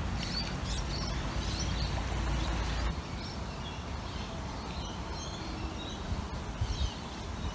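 Small birds chirping over a steady background hiss, with a low rumble that stops about three seconds in.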